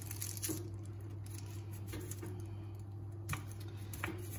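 A hand smoothing a greaseproof paper liner into the base of a greased round cake tin: faint paper rustling with two light clicks near the end, over a steady low hum.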